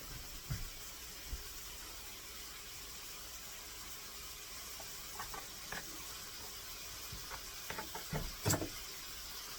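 Bacon sizzling steadily in a frying pan, with scattered light knocks and taps from cutting chicken breasts on a board. The loudest knock comes near the end.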